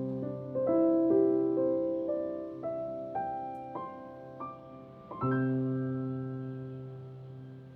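Soft background piano music: a slow phrase of held notes and chords, ending on a last chord struck about five seconds in that rings out and fades away.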